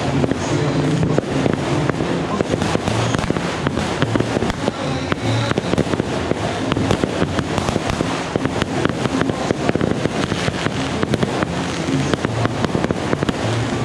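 Aerial fireworks bursting and crackling in a dense, continuous string of sharp pops and bangs, with music playing underneath.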